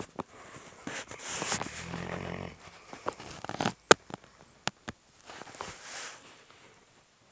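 St Bernard breathing heavily in its sleep: two long, noisy snoring breaths, the first with a low groan in it about two seconds in. A few sharp clicks fall between the breaths.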